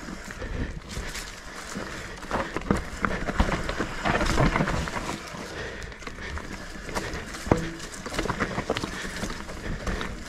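Mountain bike riding over a rough trail: tyres on stones and dirt with irregular knocks and rattles from the bike.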